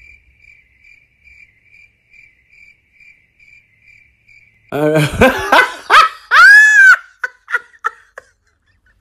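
Faint crickets chirping in an even rhythm, about three chirps a second. About five seconds in, a loud cry cuts in, its pitch rising and falling, followed by a few short clicks.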